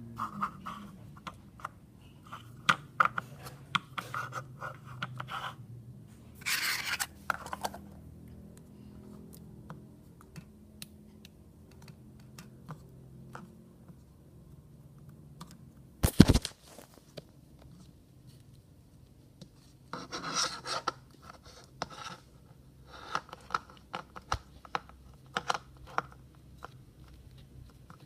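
Hand-handling noises of slime and its containers: scattered scratching and clicking, with two longer scratchy stretches and one sharp knock about sixteen seconds in.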